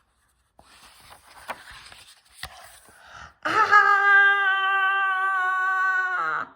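Rustling with a few light clicks, then a woman's voice holding one long, steady, high "Aaah!" cry for about three seconds before cutting off. The cry is the character's shriek, acted out in a read-aloud.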